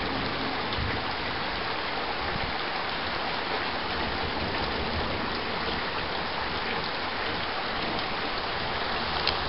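Heavy thunderstorm rain pouring down steadily, an even hiss of rain.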